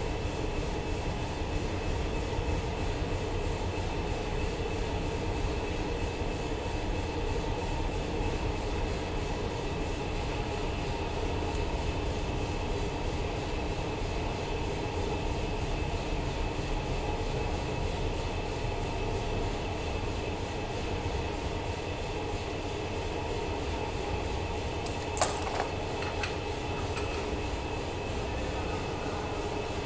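Steady low mechanical rumble and hum with a few faint steady tones, like machinery running, and a single sharp click about 25 seconds in.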